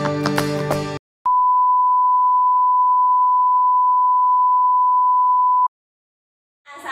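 A colour-bars test tone: one steady, unwavering beep at a single pitch, held for about four and a half seconds and then cut off sharply. Before it, guitar end-card music stops abruptly about a second in.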